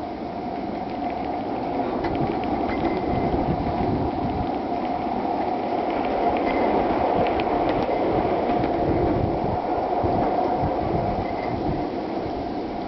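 Gauge-one garden railroad rolling stock running along the track, heard from aboard one of the cars: a steady rumble of small metal wheels on rail with a continuous ringing tone and a few faint clicks.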